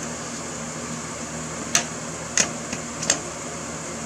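Three sharp metallic taps about two-thirds of a second apart as a screwdriver works at the axle hub of a riding mower wheel, over a steady low hum.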